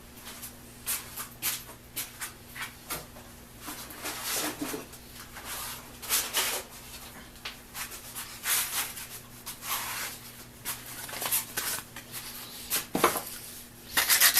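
Irregular rustles and light clicks of small metal parts and sandpaper being handled on a workbench, over a low steady hum. Rapid sanding strokes on the copper contacts start near the end.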